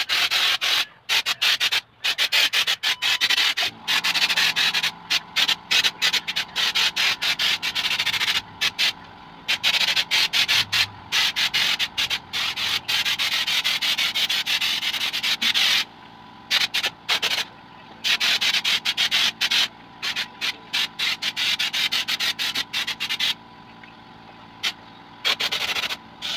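Compressed-air spray gun spraying a textured coat of Plexibond mixed with cement onto a speaker box, hissing in many short bursts with brief gaps as the trigger is pulled and released.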